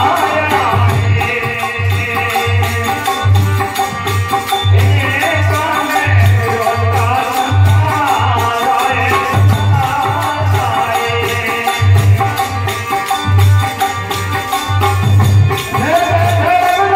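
Live devotional bhajan music: a melody on a keyboard instrument over a steady, even low drum beat, with jingling hand percussion.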